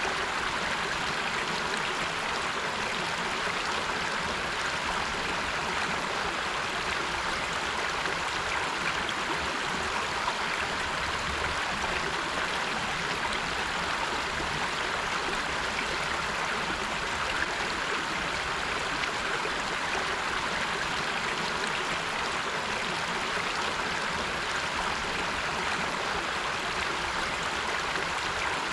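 River water flowing and rushing over rocks: a steady, even rush of moving water.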